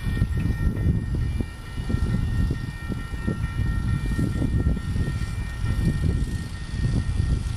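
Low, uneven rumble of a Union Pacific intermodal freight train as its last cars roll away, with a few faint steady high tones above it.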